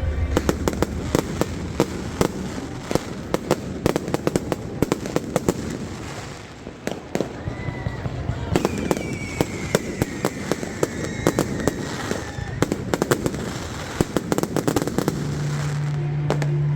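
New Year's fireworks and firecrackers going off in rapid, dense crackling bangs. Through the middle a whistling tone slides slowly down.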